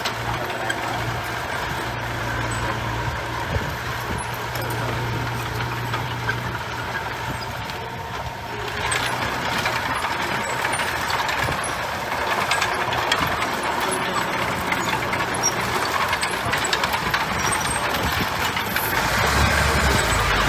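Heavy diesel construction machinery running, with a steady low engine hum. About nine seconds in it becomes louder and rougher, and louder again a few seconds later, as the machines work harder or come closer.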